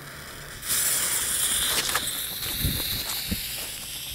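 Firecracker fuse catching after being lit, then hissing and sputtering steadily, slowly fading. A couple of dull low thuds sound partway through.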